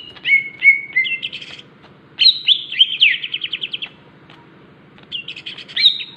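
Green leafbird (cucak ijo) singing a chattering song of rapid trilled and sliding notes, in three bursts with short pauses between.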